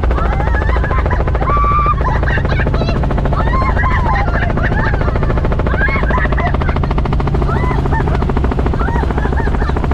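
Light helicopter in cruise flight, heard from inside the cabin: its rotor and engine run steadily, a low drone with a rapid, even beating of the blades.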